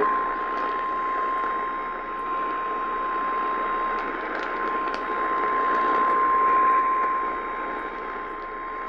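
Emergency Alert System attention signal received over AM radio: a single steady tone of about 1050 Hz, the National Weather Service warning tone, under static hiss. It cuts off near the end and marks the start of an emergency warning broadcast.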